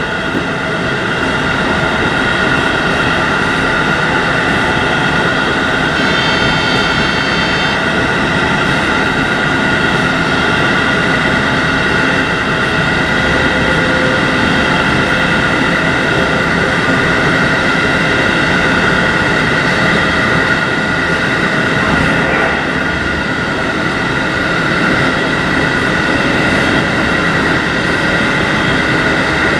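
JR 711 series AC electric multiple unit running along the line, heard from on board: a steady rumble of wheels and running gear under a constant high hum. A brief higher whine comes in about six seconds in.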